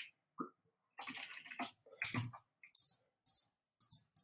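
Faint computer keyboard typing and clicks in short separate bursts, with a brief murmured word between them.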